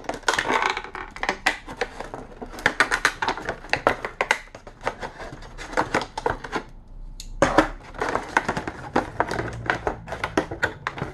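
Stiff clear-plastic blister packaging being pried and pulled open, giving dense, irregular crackling and clicking, with a short pause about seven seconds in.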